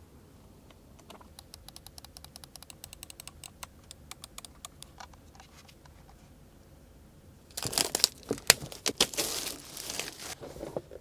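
Keys of a mechanical keyboard clicking in a quick run of keystrokes for a few seconds. From about halfway through, louder crinkling and rustling of plastic packaging being handled.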